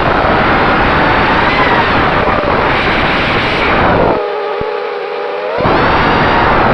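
FPV quadcopter's brushless motors (T-Motor F60) and tri-blade props whining in flight, under heavy wind buffeting the onboard camera's microphone. About four seconds in, the wind noise drops away for over a second and leaves a clear, steady motor whine, then the buffeting comes back.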